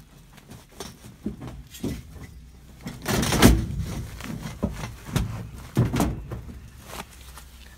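Foil-jacketed insulated duct being forced over the sheet-metal flanges on top of an air handler: crinkling and rustling of the foil with irregular bumps and knocks against the metal, the loudest a longer rustle about three seconds in and two sharp knocks near the end.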